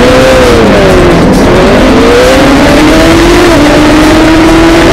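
Onboard sound of a Suzuki GSX-R1000 superbike's inline-four engine at racing revs among other race bikes, loud, its pitch dropping briefly, then climbing again and holding.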